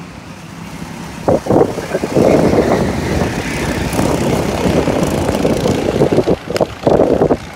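Go-kart engines running as the karts drive round the track. The sound swells about a second in and stays loud, with short sharp surges near the start and again near the end.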